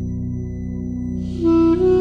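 Background music: a steady low drone, with a held melody note coming in about one and a half seconds in.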